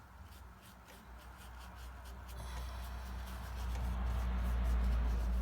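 A paintbrush scrubbing and dabbing on watercolour paper, soft and scratchy. A low rumble builds under it from about halfway through and is loudest near the end.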